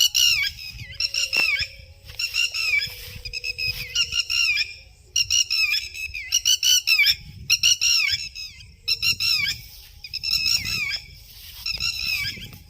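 Birds calling in repeated bursts of high, rapid, squawking chirps, a new burst about every second, with a low rumble underneath.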